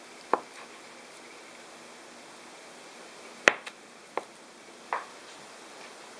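Kitchen knife cutting through a block of Spam and tapping against a plastic cutting board: a single sharp tap about a third of a second in, then three more close together between about three and a half and five seconds, the first of these the loudest.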